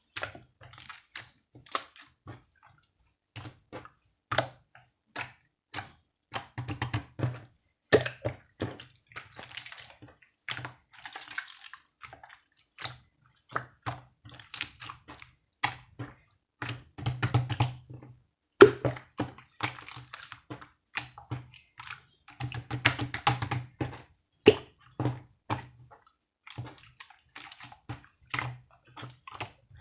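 Irregular wet clicking and sloshing sounds from something being handled, with louder clusters about 7, 17 and 23 seconds in.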